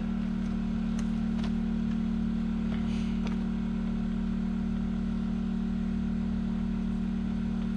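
Generator engine running at a steady idle, a constant hum, with a few faint ticks over it about a second in and again about three seconds in.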